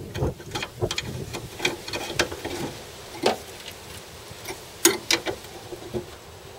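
Scattered, irregular light clicks and metallic taps of hand tools being worked on car body parts, a dozen or so sharp ticks at uneven intervals, the loudest about five seconds in.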